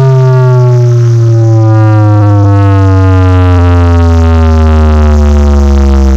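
A large carnival sound system's subwoofers playing a sound-check bass sweep at full volume: one very loud, buzzing low tone gliding slowly and steadily downward in pitch.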